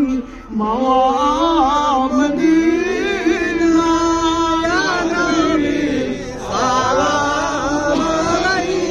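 A man chanting an Islamic devotional song into a microphone, with no instruments: long held notes that bend and waver in pitch.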